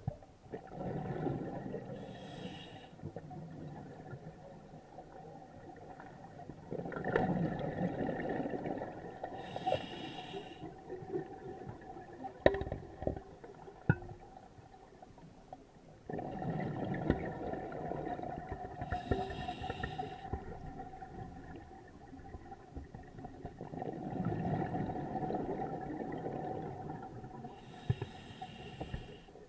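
Scuba diver breathing through an open-circuit regulator underwater: slow breaths about every eight seconds, each a long bubbling rumble of air ending in a short hiss. Two sharp knocks of equipment come about halfway through.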